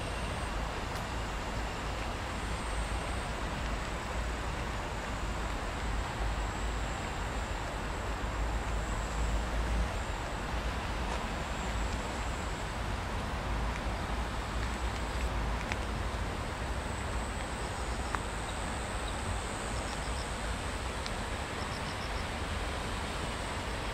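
Steady rumble of distant road traffic under a constant hiss, with a few faint high chirps near the end.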